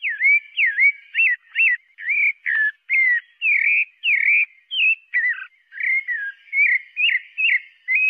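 Sabiá-parda, a Brazilian thrush, singing: a steady run of short, clear whistled notes, about two a second, each slurring up or down in pitch.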